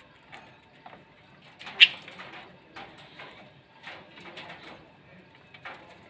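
A small flock of budgerigars and lovebirds chirping in short, scattered calls, with one loud sharp chirp about two seconds in.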